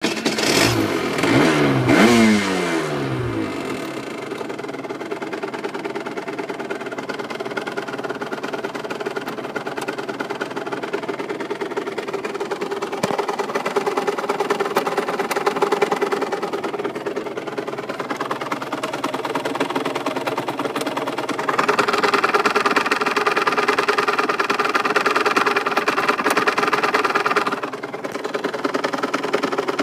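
RS 125 motorcycle engine blipped and falling back at the start, then idling steadily with a ticking noise whose source the owner cannot find. In the last third the engine runs louder and higher for several seconds before settling back.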